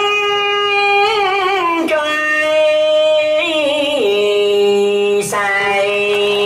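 A male singer sings into a microphone, holding several long notes with a wavering vibrato and stepping from one pitch to the next.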